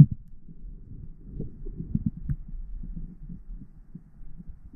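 Muffled underwater sound picked up through a waterproof camera housing: irregular dull low thumps and water movement, with a sharper knock at the very start.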